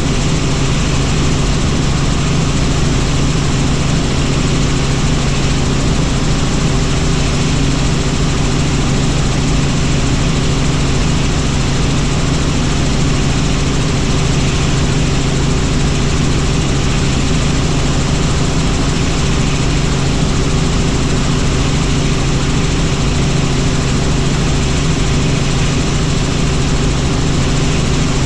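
Helicopter in flight: steady rotor and engine noise with a strong low hum, unchanging throughout.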